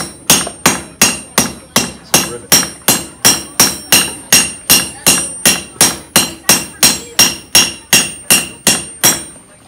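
Blacksmith's hand hammer striking hot iron on an anvil, a steady run of about three blows a second, each with a bright metallic ring, stopping shortly before the end. This is the heading of a hand-forged nail, the head flattened out in a nail header.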